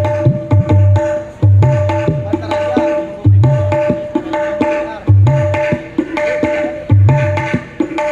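Dangdut gendang, a tabla-like pair of hand drums, played in a repeating groove during a sound check. Deep bass strokes on the large drum bend in pitch, and sharp ringing strokes on the small drum fall between them. The pattern comes round about every second and a half.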